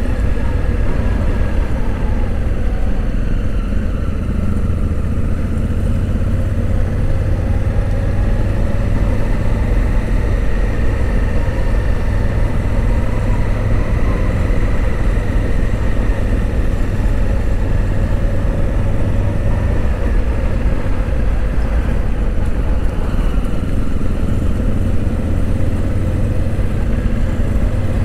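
Motorcycle being ridden at steady speed: the engine runs under a heavy wind rumble on the microphone, with a faint engine tone that drifts slowly up and down in pitch.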